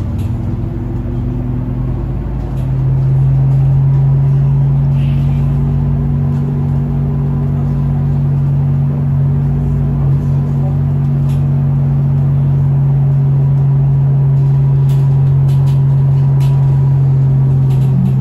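Iveco Urbanway 18 Mild Hybrid articulated city bus under way, heard from inside: a steady low drone from the driveline over road rumble. The drone grows louder about two and a half seconds in, then holds steady as the bus cruises.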